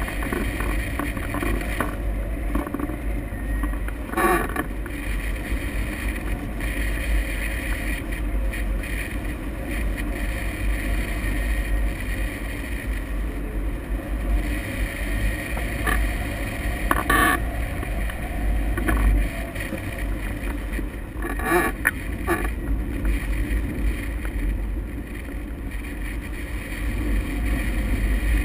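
Airflow rushing over the microphone of a camera mounted on a hang glider in flight: a steady, heavy wind noise with a few brief louder gusts, about 4 s in, near the middle and again a few seconds later.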